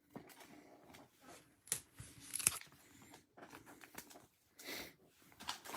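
Trading cards and foil pack wrappers being handled: intermittent rustling, crinkling and light clicks, with two sharper snaps about two seconds in.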